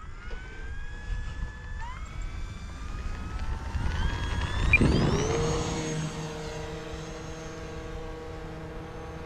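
Electric brushless motor and propeller of an E-flite Air Tractor RC plane whining higher as it throttles up for takeoff. It is loudest as it passes close by about five seconds in, then holds a steady tone as it climbs away.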